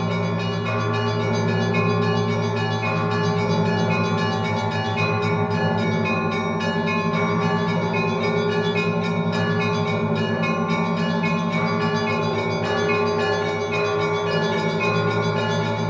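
Orthodox church bells ringing a festive peal (prazdnichny zvon): many quick strikes of the higher bells over a steady low hum from the large bells, with no break.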